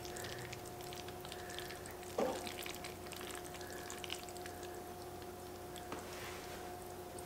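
A fork twirling sauce-coated fettuccine in a hollowed pumpkin bowl: faint wet squishes and light clicks, with one louder knock about two seconds in. A faint steady hum runs underneath.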